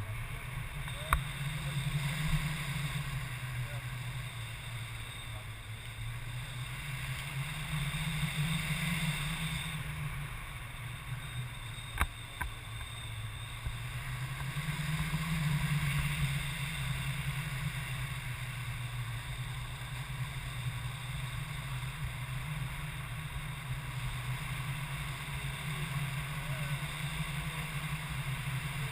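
Wind rushing over the microphone in flight on a tandem paraglider: a steady low rush that swells and fades every several seconds, with a sharp click about a second in and another about twelve seconds in.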